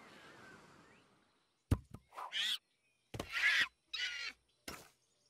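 A faint airy hiss fades out, then a sharp click, followed by four short, high chattering calls from a cartoon lemur-like creature.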